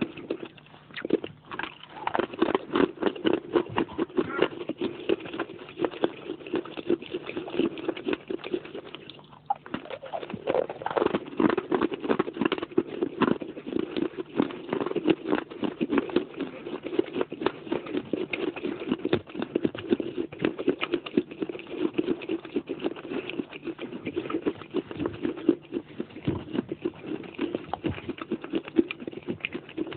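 Pieces of baked clay pot being crunched and chewed: a dense run of crisp crunches, with a short pause about nine seconds in.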